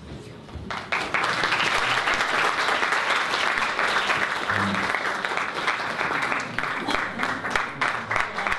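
Audience applauding: the clapping breaks out about a second in and keeps on steadily.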